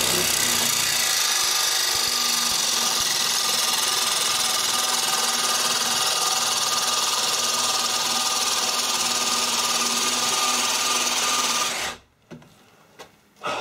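DeWalt DCD996 brushless cordless drill boring a 25 mm flat spade bit into the end grain of an old, dry fence post. It runs steadily at full speed without pausing, then stops about twelve seconds in. A few light knocks follow.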